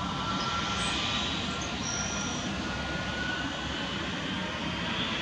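Airbus A320neo's Pratt & Whitney geared turbofan engines running at takeoff power as it starts its takeoff roll, heard from a distance as a steady rushing hum.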